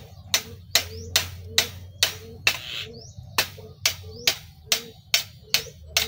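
Metal being struck repeatedly at the hub of a mesh satellite dish, sharp blows about two and a half times a second with a brief ring after each, as the dish is taken apart. There is a short break after about two seconds, then the blows resume.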